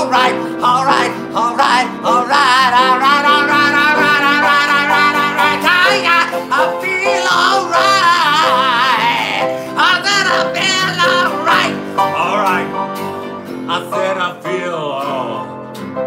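Acoustic guitar and upright piano playing a song together, with a singer holding long notes with strong vibrato over the chords.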